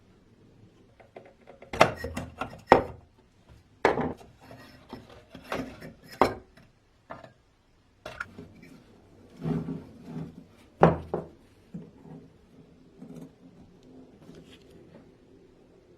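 Irregular knocks and scraping of wooden and metal parts as a vintage hand coffee grinder is worked on by hand, with a few sharp knocks standing out.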